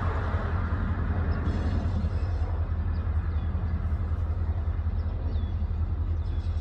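Diesel freight locomotive rumbling as it approaches slowly, a steady low rumble.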